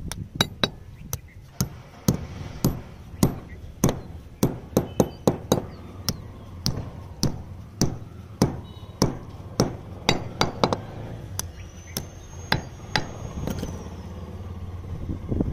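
Club hammer striking anchor bolts through a steel base plate into concrete: a long series of sharp metallic blows, about two a second.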